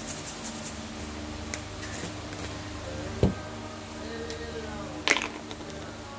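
Light knocks and clicks from plastic seasoning shaker bottles being handled and set down on a table, the loudest about three and five seconds in, over faint steady background music.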